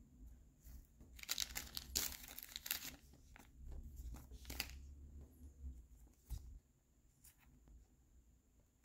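A thin, clear plastic card sleeve crinkling and rustling in short irregular bursts as a trading card is handled and slid into it. The rustling is busiest in the first half and thins to a few light clicks near the end.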